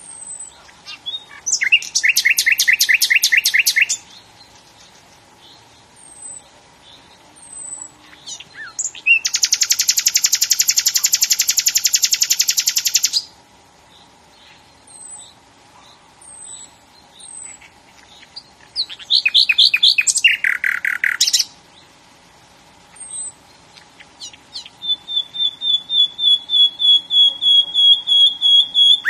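A bird singing in separate bursts of fast trills, one long trill held for about four seconds, with short high chirps in the pauses; near the end it repeats one note about four times a second.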